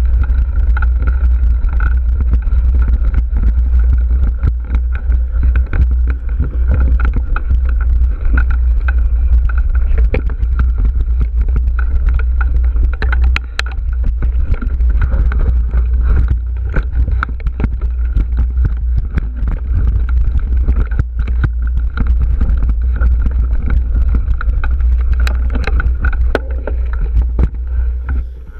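Mountain bike riding over dirt and rocky singletrack, heard through a GoPro's microphone: a heavy steady rumble of wind on the microphone, with frequent clicks and clatter as the bike rattles over stones and bumps.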